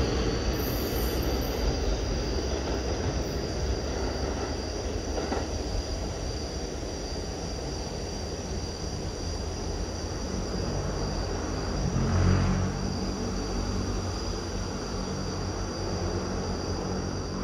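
Kawasaki R211S subway train pulling out and rolling away along the track, its rumble and wheel noise carrying on steadily under a constant high-pitched whine, with a brief louder rumble about twelve seconds in.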